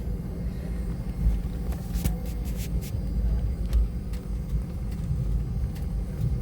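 Airliner cabin noise while taxiing: a steady low rumble of the engines and the wheels rolling, with a faint steady hum and a few light clicks about two to three seconds in.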